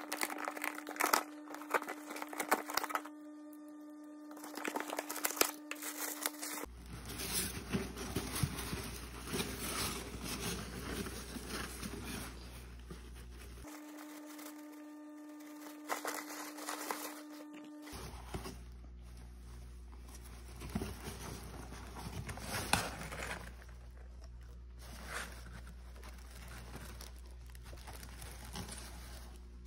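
Cardboard shipping box being opened by hand: packing tape tearing, flaps handled and packing paper crinkling, in irregular bursts of rustling and clicks. A steady hum sits under the first few seconds and again briefly in the middle.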